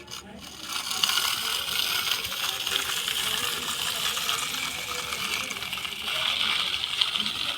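A dense, steady clatter of small hard pieces rattling together, starting about a second in and cutting off suddenly at the end.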